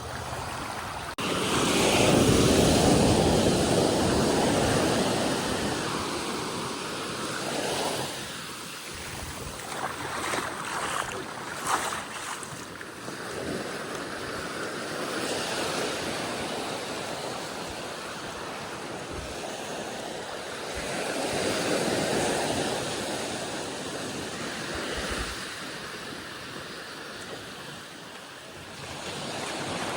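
Ocean waves breaking and washing up a sandy beach, the surf swelling loudest about a second in and again about two-thirds of the way through, with wind buffeting the microphone.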